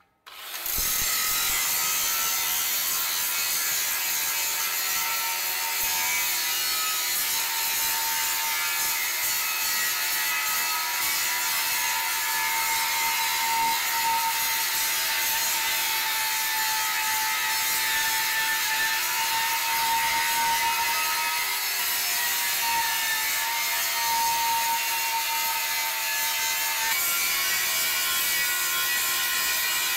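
Angle grinder starting up and grinding the inside of a steel tractor wheel rim: a steady high whine over the hiss of the disc on the metal, its note shifting slightly a few times as the load changes.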